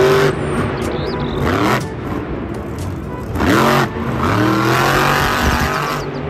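Monster truck engine revving hard, its pitch rising and falling in surges, loudest at the start and again about three and a half seconds in.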